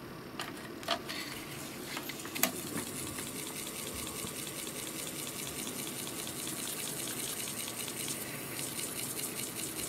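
Commodore 1541 floppy drive spinning a disk continuously, its motor running nonstop because the U4 chip has been pulled. There are a few sharp clicks in the first two and a half seconds, as the disk is handled and seated. After that comes a steady rushing hiss of a damp cotton swab rubbing on the spinning disk's surface.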